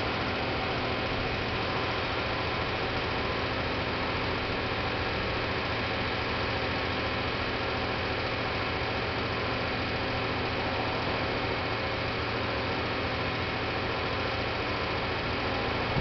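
Mercedes-Benz Actros 4144 truck's V8 diesel engine running steadily, driving the hydraulics of a Putzmeister 46 m concrete pump boom while the boom moves.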